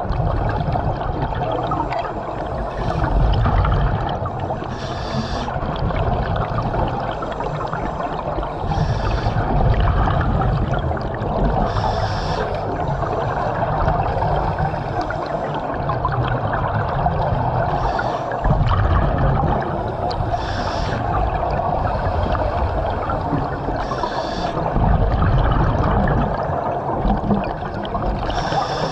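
A diver breathing in a dive helmet underwater: a short hiss of air every three seconds or so as he breathes in, with bubbling exhaust between breaths.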